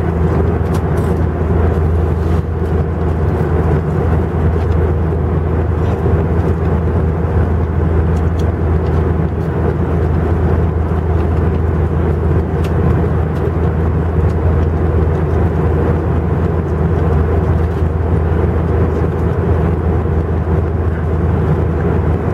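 A deep, steady drone inside an Airbus A320's cabin in the climb: the IAE V2500 turbofan alongside running at climb thrust, mixed with the rush of air over the fuselage. No change in pitch or level.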